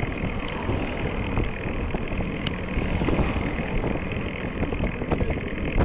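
Cars overtaking a bicycle: tyre and engine noise swells as a car goes by about three seconds in. Steady wind buffeting and road rumble on the bike-mounted microphone run underneath.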